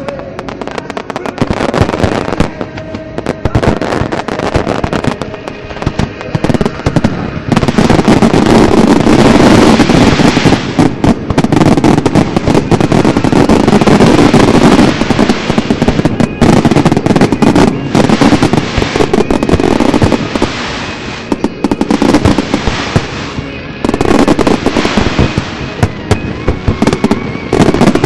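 Fireworks display: many shells bursting in rapid, overlapping bangs and crackles, with music underneath. It gets much louder and denser about a quarter of the way in, eases a little for a few seconds near two-thirds through, then builds again.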